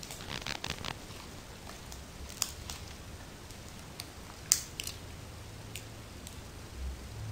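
Glitter slime being squeezed and stretched in the hands, giving a scatter of small sticky clicks and pops: a quick cluster in the first second, then single pops, the sharpest about four and a half seconds in.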